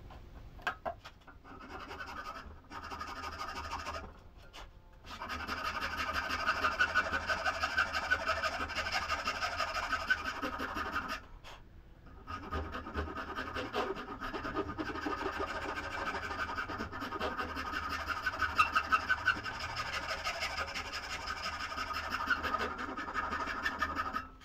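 Hand rasp being worked in rapid scraping strokes over a maple knife handle, taking down the bulky wood. The scraping pauses briefly twice, a few seconds in and again near the middle.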